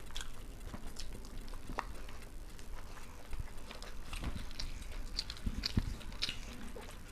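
Chewing and eating sounds: scattered small clicks and mouth noises of people eating.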